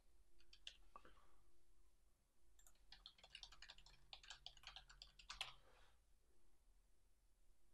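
Faint typing on a computer keyboard: a few separate clicks about half a second to a second in, then a quick run of keystrokes through the middle that stops about two seconds before the end.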